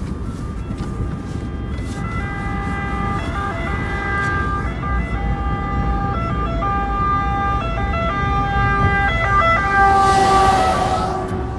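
Two-tone siren of an Italian fire engine, switching back and forth between two pitches. It grows louder from about two seconds in, and near the end the truck passes close with a rush of air while the siren drops in pitch. Under it is the steady low road-and-engine rumble of the car it is heard from.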